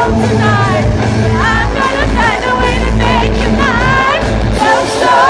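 Live pop-rock band playing loud through a concert sound system, heard from within the crowd: electric guitars, bass and drums under singing.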